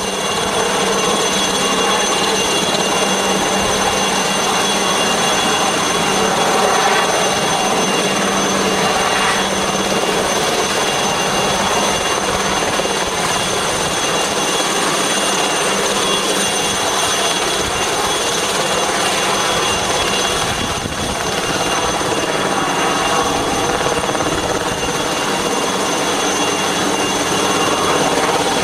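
Helicopter hovering overhead: a steady, loud drone of rotor and engine.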